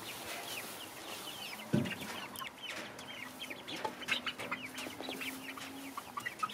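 Young Golden Comet chicks in a galvanized stock-tank brooder peeping in many quick, short, high chirps as they are caught by hand. A brief low thump about two seconds in is the loudest moment.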